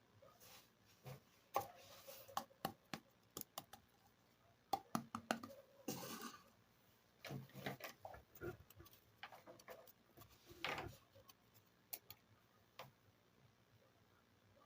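Small plastic toy kitchen pieces handled, tapped and set down: scattered light clicks and taps, with a brief rustle about six seconds in.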